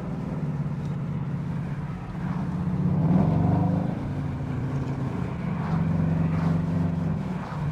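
Car engine droning while driving, heard from inside the vehicle, swelling and rising in pitch twice as it speeds up, about two seconds in and again near the end.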